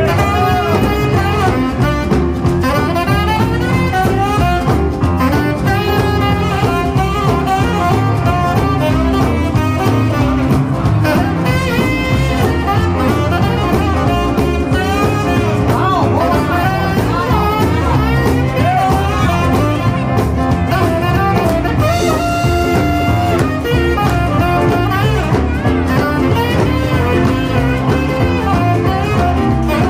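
Live rock and roll band playing an instrumental break: a saxophone takes the lead over electric guitar, upright bass and drums, with no singing.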